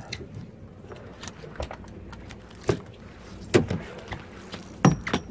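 Several sharp knocks and rattles on a fishing boat, the loudest about three and a half and five seconds in, over a steady low background.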